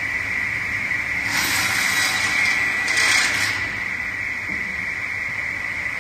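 Automatic wood cut-off saw running with a steady high whine; about a second and a half in, a hissing cut lasting about two seconds as it goes through the wood.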